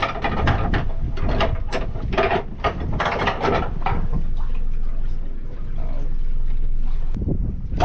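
Anchor chain and windlass clattering, a quick run of metallic clicks for about the first four seconds, then easing off, over a steady low rumble.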